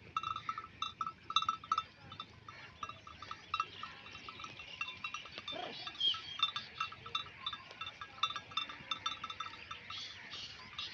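Bells worn by grazing sheep clanking irregularly, many strikes overlapping. A short sheep bleat comes about halfway through.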